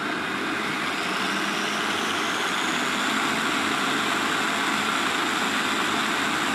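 Xinlehong 9125 RC car's electric motor and gear drivetrain spinning at full throttle on a 7.4 V LiPo battery, wheels off and unloaded. A loud, steady whirring with a thin high whine that climbs slightly over the first few seconds and then holds.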